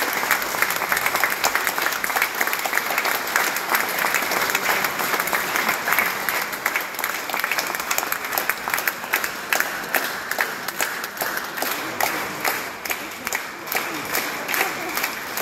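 Audience applauding: a dense, continuous wash of many hands clapping that thins toward the end into more separate claps.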